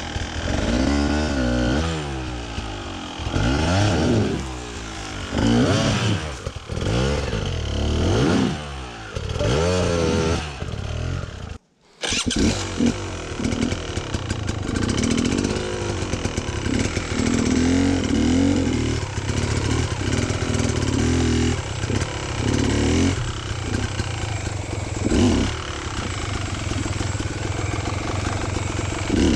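Enduro dirt bike engines revving up and down in repeated bursts while being worked up a steep slope. After a sudden short break about twelve seconds in, an engine runs more steadily with occasional small revs.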